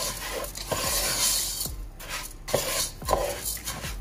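A spatula stirring and scraping raw risotto rice through olive oil in a stone-coated pot, the dry grains rasping against the pan in repeated strokes. This is the rice being coated and toasted in the oil before any liquid goes in.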